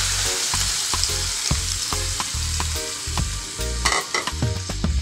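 Coconut milk poured into a hot pan of sautéed jackfruit, sizzling hard at first, then dying down as the liquid cools the pan.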